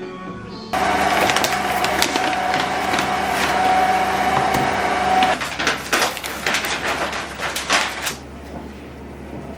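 A small electric motor starts suddenly and runs steadily with a constant whine for about four and a half seconds, then runs in short irregular bursts before stopping.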